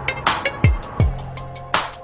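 Background hip-hop instrumental music: a slow beat of deep kick drums and sharp snare hits over quick ticking hi-hats and held synth notes.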